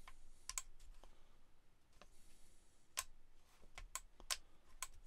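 Quiet sharp clicks from a Ferrex cordless angle grinder's on/off switch being pushed and released, the switch latching in the on position. There is a double click about half a second in and four more single clicks near the end.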